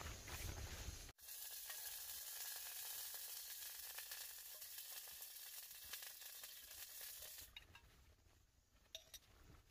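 Faint, steady hiss from a gas-bottle stove heating an empty enamel pot. It starts just after a sudden cut a second in and dies away about seven and a half seconds in.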